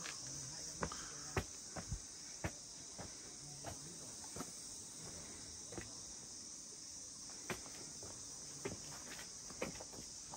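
Steady high-pitched buzzing chorus of insects, with scattered footsteps and small knocks.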